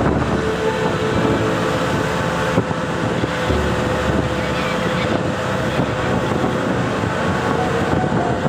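Motorboat engine running steadily under heavy wind noise on the microphone.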